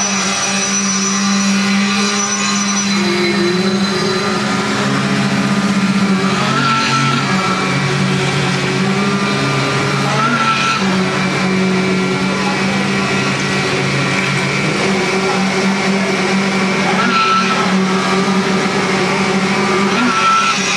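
Heavy engines running steadily, several engine tones held with small shifts in pitch now and then.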